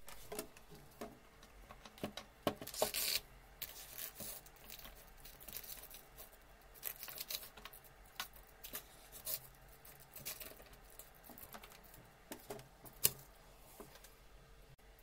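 Small handling noises: scattered rustles, taps and clicks as a plastic LED light bar is handled and set in place, with one sharp click near the end.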